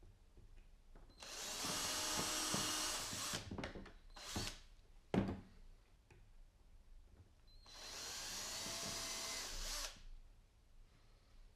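Power drill running in two bursts of about two seconds each, several seconds apart, with a few knocks and one sharp click between them.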